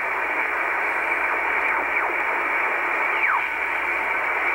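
Icom IC-R8500 communications receiver in upper sideband mode, giving out steady shortwave band hiss as the dial is tuned across the 14 MHz band. A few faint tones sweep downward in pitch as signals are tuned past.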